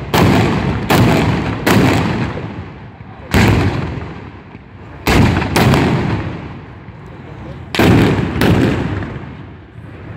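Old black-powder guns fired in turn by a line of shooters: about eight loud shots at irregular spacing, each trailing off in a long echo.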